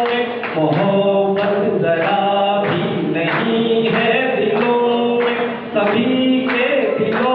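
A man singing a Hindi-Urdu poem in a melodic recitation style, with no instruments, holding long gliding notes. His phrases are broken by two short breaths, one near the start and one about two-thirds of the way through.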